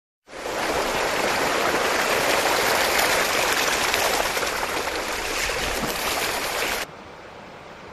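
Floodwater rushing across a road: a steady, loud rush of water that drops abruptly to a much quieter flow near the end.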